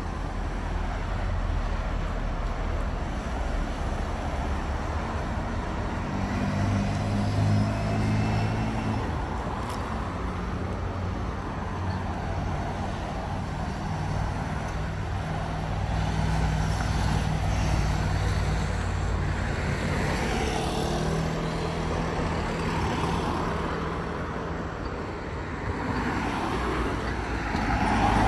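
Street traffic: motor vehicles running and passing, a steady low engine hum under road noise, swelling louder near the end.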